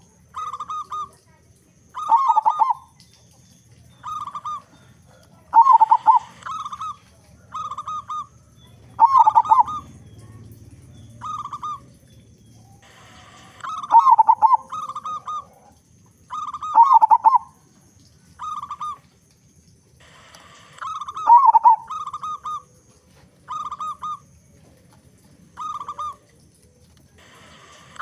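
Zebra dove (perkutut) cooing over and over: a louder, fuller cooing phrase every three or four seconds, with shorter, softer coo notes between them.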